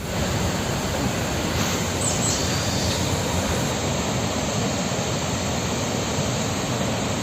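Waterfall's steady rushing of falling water, an even, unbroken roar, with a brief high chirp about two seconds in.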